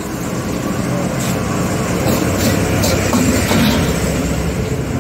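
Steady rumble of a gas burner under a wok with food sizzling in it, and a few short metal clinks.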